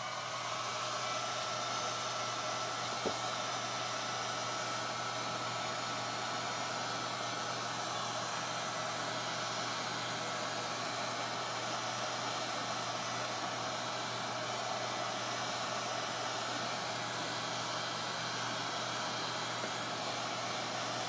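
Handheld hot-air blower running steadily, a blowing hiss with a steady whine that settles in pitch over the first second, heating the phone's corners to soften the back-glass adhesive. A small click about three seconds in.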